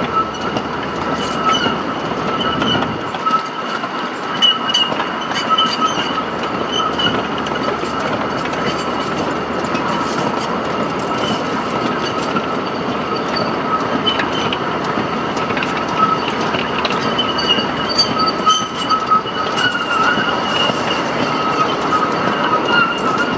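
Loaded sugarcane bins of a cane train rolling slowly past on the tramway. There is a steady high-pitched wheel squeal with a continuous rumble, and frequent small clicks and rattles from the wheels and bins.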